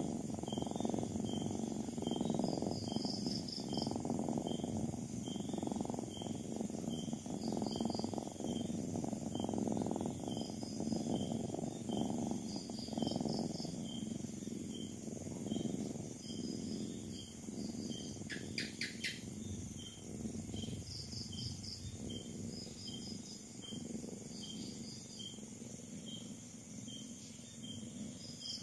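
A nursing cat purring, a low, uneven rumble that fades after about fifteen seconds. Crickets chirp throughout at about two chirps a second, with short higher trills and a brief high chirp about two-thirds of the way in.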